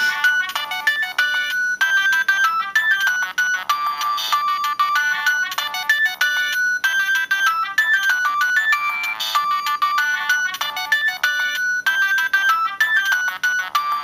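Siemens C65 mobile phone ringtone playing: a bright electronic melody of quick notes whose phrase repeats about every five seconds.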